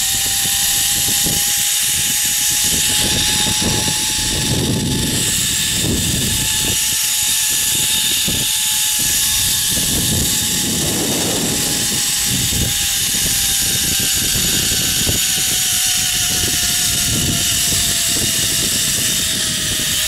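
Zipline trolley pulleys running along the steel cable: a steady whine that slowly falls in pitch as the rider loses speed, over a rushing hiss. It stops abruptly at the end, when the trolley is brought up with a jolt.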